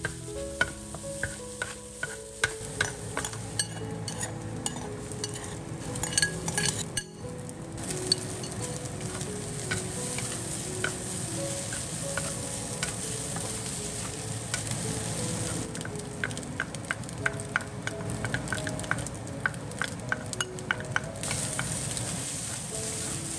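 Brown rice and scrambled egg sizzling as they are stir-fried in a wok, with a wooden spatula scraping and tapping against the pan in quick, uneven strokes. The sizzle grows steadier and louder after about eight seconds.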